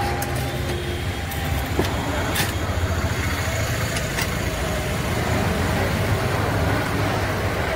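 An engine running steadily at a low, even rumble, with outdoor street noise around it.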